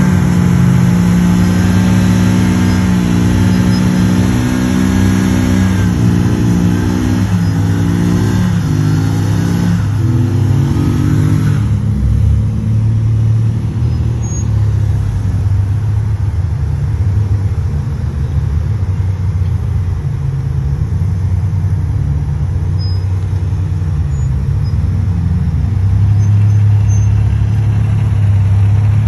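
Off-road vehicle's engine running and revving, its pitch rising and falling several times in the first dozen seconds, then running more steadily.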